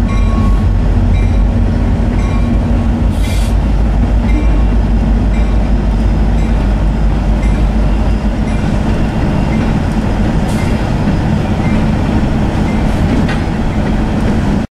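Freight train passing: a steady heavy rumble of rolling cars with scattered sharp clanks and clicks.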